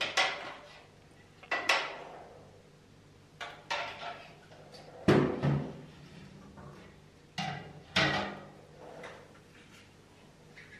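Plastic jug, funnel and bottles knocking and clattering against a bathtub as they are handled: a string of irregular sharp knocks, each with a short ring.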